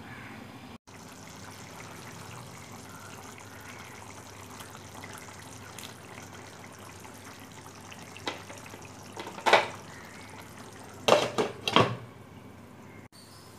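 Chicken curry bubbling steadily as it simmers in a pot. Near the end come a few sharp clinks of metal and glass as the glass lid is handled and set back on the pot.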